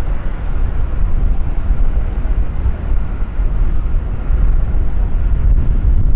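Steady low rumble of jet aircraft engines, with wind buffeting the microphone.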